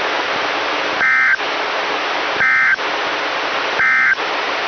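Emergency Alert System end-of-message data bursts on NOAA Weather Radio: three short, identical warbling digital tone bursts about a second and a half apart, marking the end of the weekly test. A steady radio hiss sits under them.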